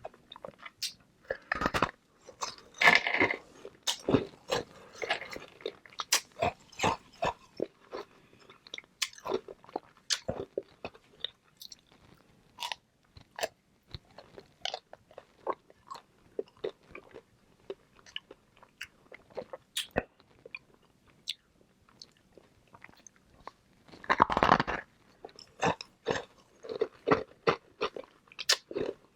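Hard flavoured ice balls being bitten and chewed close to the microphone: sharp cracks and crunches throughout, with a dense, loud burst of crunching about two seconds in and another, the loudest, near the end.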